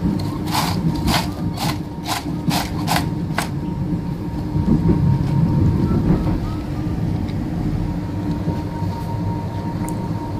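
Inside a moving passenger train carriage: the steady rumble of the running train with a steady hum over it. In the first few seconds comes a quick run of about seven short crisp ticks, roughly two a second.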